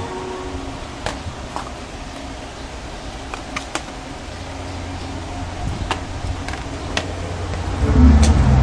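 Light clicks and taps from handling a plastic packaging tray, box and cable, about half a dozen scattered through, over a steady low rumble. Music comes back in near the end.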